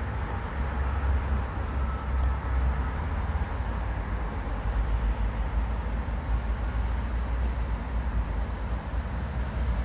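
Steady low outdoor rumble with an even hiss over it and no distinct events, like distant town traffic or wind on the microphone.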